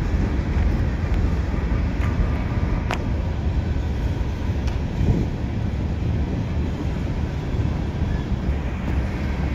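Norfolk Southern mixed freight train's cars rolling past, a steady low rumble of wheels on rail, with a sharp click about three seconds in.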